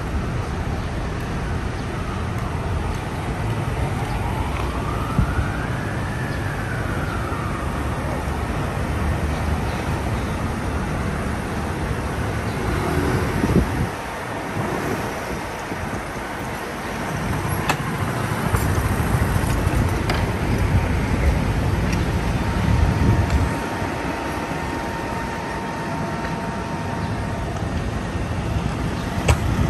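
Steady city street traffic noise. A few seconds in, a siren sweeps up in pitch and back down once.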